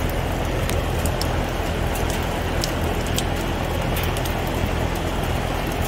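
Outdoor air-conditioning condenser unit running: a steady machine hum with a rushing of air.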